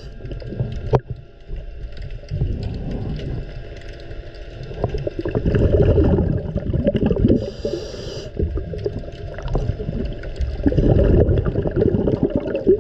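Muffled water churning and gurgling as heard by a camera under water, an uneven low rumble with a brief hiss of bubbles about seven and a half seconds in.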